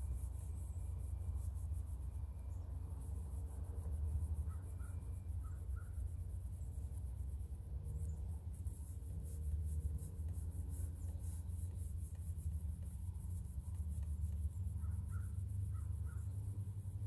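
A crow cawing faintly, two runs of about four caws each, one about four seconds in and another near the end, over a steady low rumble.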